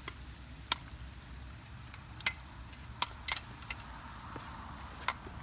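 Scattered light metallic clicks and taps, about half a dozen, from a steel basketball-hoop jack and its bolt hardware being handled and set against the pole, over a low steady outdoor rumble.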